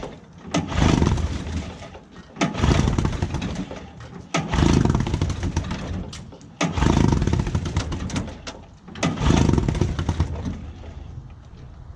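Vintage 15-horsepower Johnson two-stroke outboard being pull-started over and over: five loud cranking bursts about two seconds apart, the engine not catching into a steady run.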